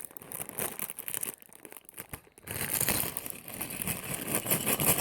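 Sealed plastic LEGO parts bags crinkling as they are handled and sorted, with loose bricks shifting inside. It goes quieter about halfway through, then the crinkling picks up again.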